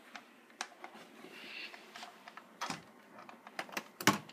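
Irregular light clicks and taps of the recording camera being handled while it is carried, with a couple of louder knocks near the end.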